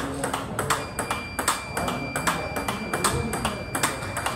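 Table tennis balls being fed and hit with backhand drives, bouncing on the table in quick multiball practice: a fast run of sharp ping-pong clicks, about three or four a second.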